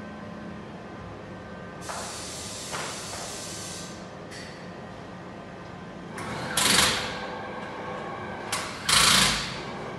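Tyre-shop air tools: compressed air hisses for about two seconds, then a pneumatic impact wrench rattles in two short bursts, the second near the end, over a steady workshop hum.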